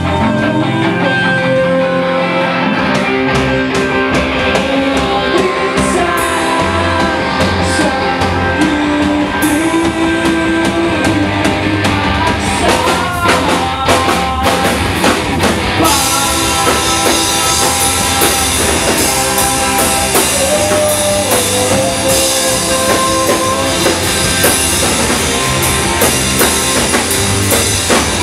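Live rock band playing loudly: a vocalist singing into a microphone over electric guitars and a drum kit. The cymbals get heavier a little past halfway.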